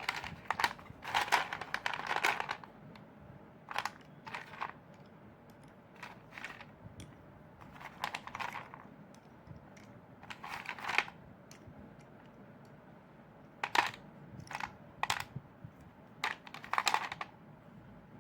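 Chalk crunching and crumbling in irregular clusters of crisp crackles, with a few seconds between clusters.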